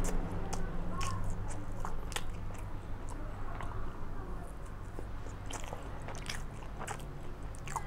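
A person chewing a mouthful of Oreo biscuit dosa, with irregular crunches and wet mouth clicks over a steady low hum.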